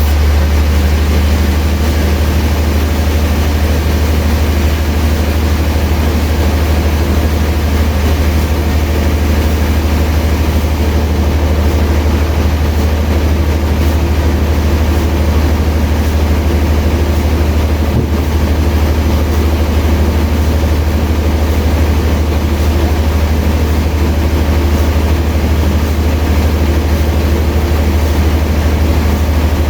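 Sawmill machinery running steadily, a loud, constant, deep hum with an even rushing noise over it that does not change.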